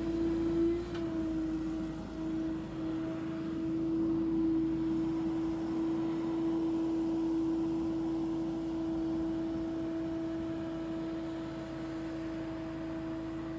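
Billy Goat P2000 stand-on leaf blower running steadily while blowing leaves: a constant whine over a rush of air, its pitch wavering briefly about a second in.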